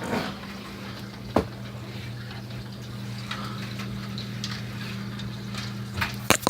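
A steady low hum, with a few sharp knocks: one about a second and a half in and a quick cluster near the end.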